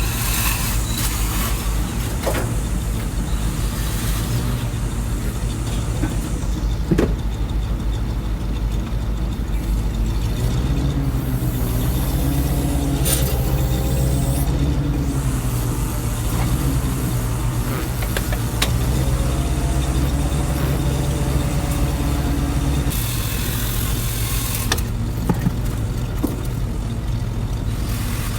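Engine running steadily. From about ten seconds in until about twenty-three seconds, a wavering higher tone rides over it, as if the engine is working under changing load.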